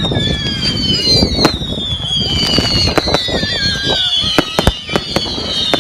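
Fireworks display: several whistling fireworks sound at once, each whistle sliding slowly down in pitch, over a run of sharp cracks and bangs that come thicker near the end.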